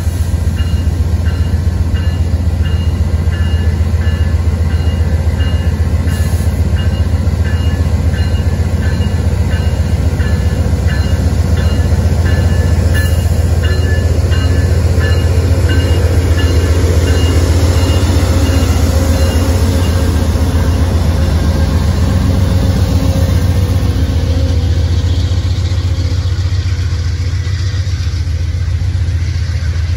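Amtrak GE Genesis P42DC diesel locomotive's engine running with a steady deep drone as the train rolls slowly past. The locomotive bell rings repeatedly until about two-thirds of the way through, then stops.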